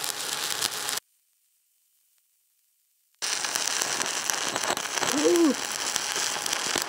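Stick-welding arc on a 7018 electrode, crackling and sizzling steadily. It drops to dead silence about a second in and resumes about two seconds later. The welder reads the sound of this pass as arc blow.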